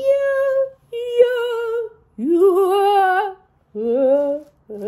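A woman singing a short unaccompanied phrase of about five long held notes with a wavering vibrato. The third note slides up into pitch.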